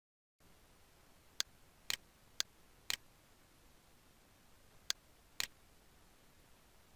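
Six sharp clicks, mostly half a second apart, over a faint steady hiss.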